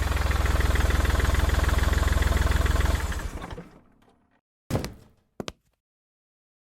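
A vehicle engine running with a deep, even pulse, then dying away about three seconds in. A door-like thunk follows, then two quick clicks.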